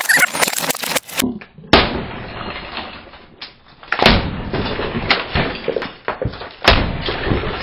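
Hammer blows smashing a hollow plastic knockoff Lightning McQueen toy car, with plastic cracking and pieces clattering onto the mat. There are several separate hard hits: a cluster right at the start, a sharp one about four seconds in, and another near the end.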